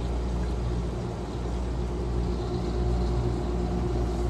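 Whirlpool 14,000 BTU air conditioner running: a steady low machine hum with a faint steady tone over a wash of fan and airflow noise.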